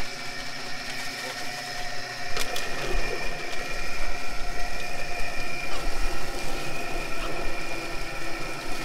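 Electric drum-style chicken plucker running, its motor spinning the rubber-fingered plate with a steady hum and whine. About two and a half seconds in it gets louder and rougher.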